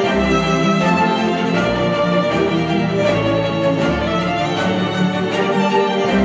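String-led music, violins over cello and bass with held notes, played back through a pair of KEF Q350 bookshelf speakers driven by an Audiolab 6000A integrated amplifier.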